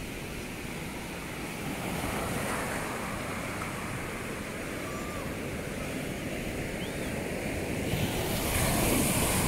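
Ocean surf breaking and washing up a sandy beach, with wind buffeting the microphone. The wash swells about two seconds in and again, loudest, near the end.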